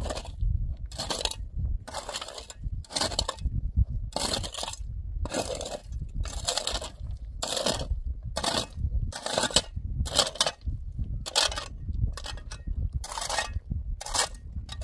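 A steady rhythm of gritty scraping or crunching strokes, about one a second, over a low rumble.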